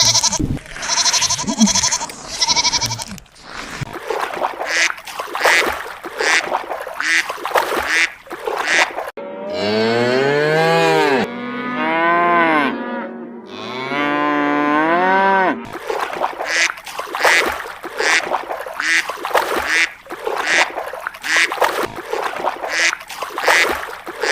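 Animal calls: a run of short, quickly repeated calls, then three long calls that rise and fall in pitch about halfway through, then more short repeated calls.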